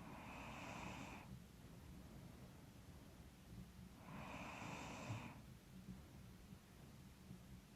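Slow breathing of a sleeping woman, a little congested through a stuffy nose. There are two long, faint breaths about four seconds apart.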